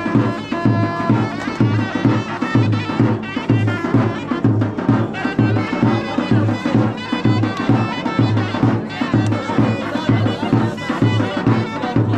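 Traditional Bakhtiari wedding music: a loud, reedy shawm (sorna) melody over a steady dohol drum beat of a little under two strokes a second.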